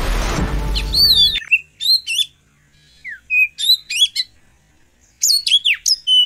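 Birds calling: short sharp chirps and whistled notes, some sliding up or down in pitch, in quick clusters with short pauses between them. Background music plays under the first second or so and then cuts off suddenly.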